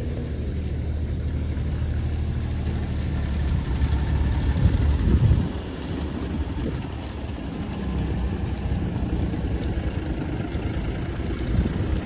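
A vehicle engine running steadily as a low hum, swelling louder about four to five seconds in.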